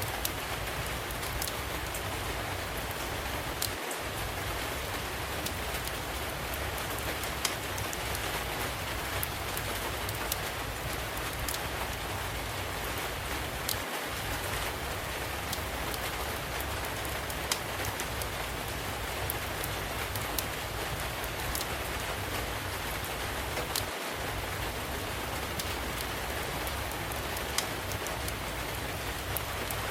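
Steady rain falling, a constant hiss, with scattered sharp crackles and pops from a wood fire in a fireplace.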